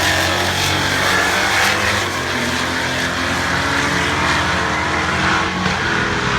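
Drag race cars, a Fox Body Mustang and an Impala, running hard at full throttle down the strip.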